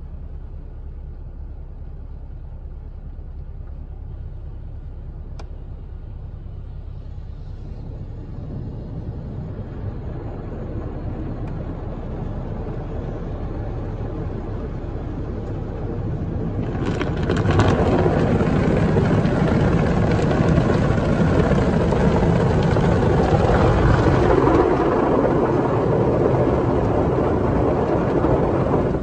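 Automatic car wash machine working over the car, heard from inside the cabin: a steady low hum under a rushing noise that grows, then turns much louder and hissier about 17 seconds in.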